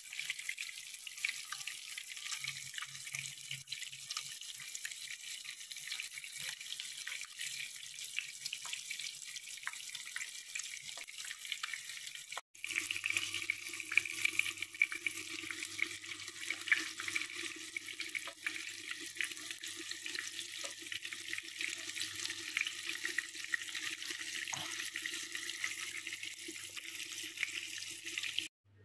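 Battered eggplant rolls shallow-frying in hot oil: a steady sizzle with scattered small pops and crackles. About halfway through it cuts out for an instant and resumes with a low steady hum underneath.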